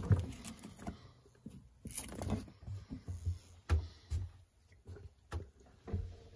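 Pleated fabric blind on a cabin window being slid and handled: irregular soft knocks and rustles, with a few sharper clicks.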